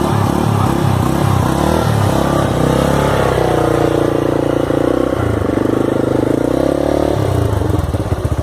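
Honda Fan 125 motorcycle's single-cylinder four-stroke engine breathing through an aftermarket sport exhaust, which gives it a rumble: it idles with an even pulse, is revved up about two seconds in and held, dips briefly, then settles back toward idle near the end.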